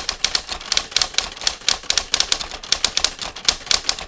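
Rapid, uneven clatter of typewriter keys striking, several strokes a second, as a title is typed out letter by letter.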